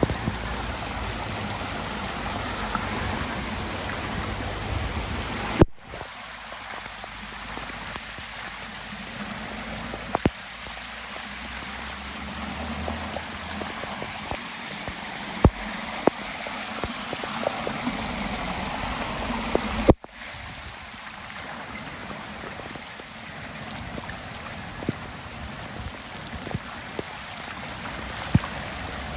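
Hard rain falling with floodwater running, an even rushing hiss with scattered splashing drops. The sound cuts out abruptly for a moment twice, about six and twenty seconds in.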